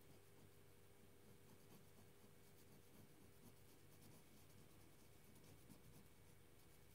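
Faint scratching of a colored pencil on paper in quick short strokes, filling in small areas of a coloring page.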